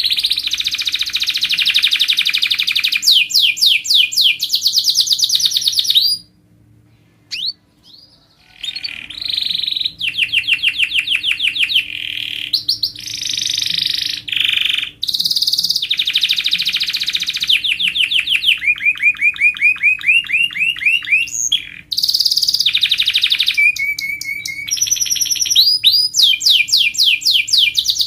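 Domestic canary singing a continuous song of fast trills and rolls, phrase after phrase of rapidly repeated notes, each phrase at a different pitch. There is a brief pause about six seconds in. This is the kind of song played as a tutor ('mastering') song to train contest canaries.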